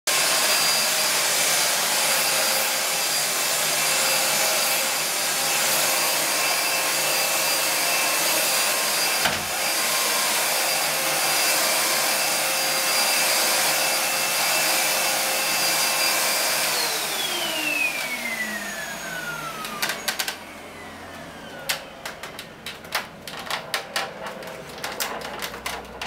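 Upright vacuum cleaner running steadily with a high whine. About seventeen seconds in it is switched off, and its motor winds down with a falling pitch. Scattered knocks and clatter follow.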